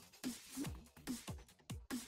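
Background electronic music with a steady kick-drum beat, about two beats a second, and crisp cymbal hits over it.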